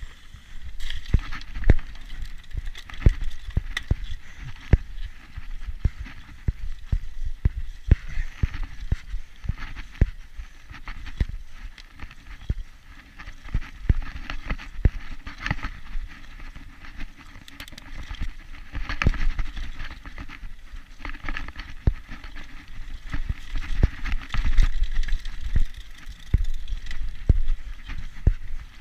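Mountain bike ridden over a bumpy dirt trail: irregular knocks and rattles from the bike, over a low rumble of wind on the microphone.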